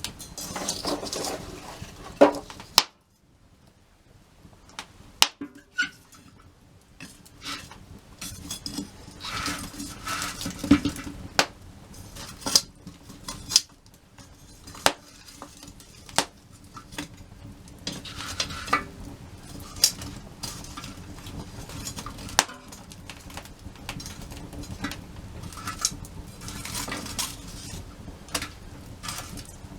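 Metal utensils clinking and knocking against cookware, a scatter of sharp irregular clicks with some scraping and stirring between them.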